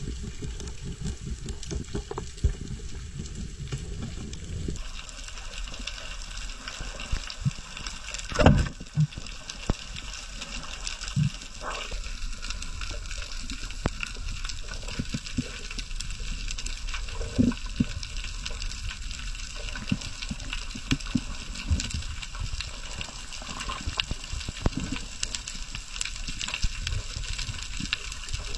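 Underwater ambience picked up by a diving camera: a steady watery hiss with scattered clicks and knocks, one louder knock about eight seconds in. The low rumble drops and the hiss brightens about five seconds in.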